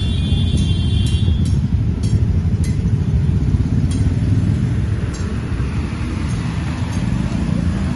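Low, steady engine rumble of a road vehicle as a soft-top jeep drives slowly past on a dirt road.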